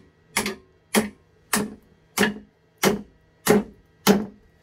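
A hand hammer striking a rusty bench vise: seven sharp metallic blows at a steady pace, a little under two a second, each ringing briefly.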